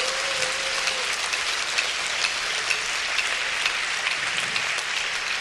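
Congregation applauding steadily, a dense even patter of many hands clapping.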